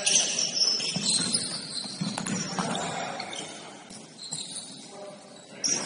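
Basketball game sounds in a gym: brief high-pitched sneaker squeaks on the court, most in the first second, and a few sharp knocks from the ball bouncing.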